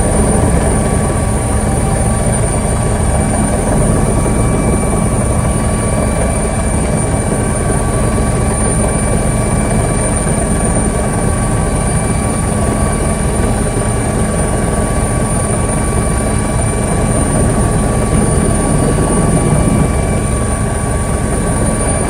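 Helicopter engines and rotor running steadily, heard from inside the cabin: a loud, unbroken rushing noise with steady whining tones over a low hum.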